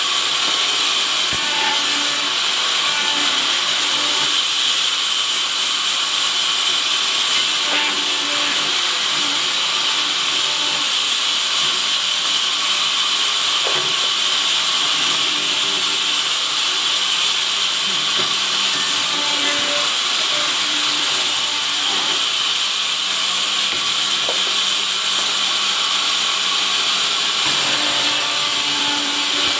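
Vertical sawmill machine running under power, a loud, steady mechanical noise that holds even throughout.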